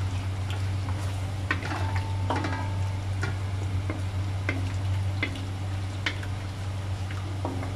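Wooden spatula stirring chicken pieces in tomato sauce in a stainless steel pan: irregular wet scrapes and light knocks against the pan, about once or twice a second, over a steady low hum.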